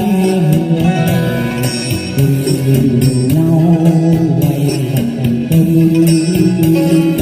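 Vietnamese Quan họ Bắc Ninh folk song music, with a plucked string accompaniment carrying a flowing melody.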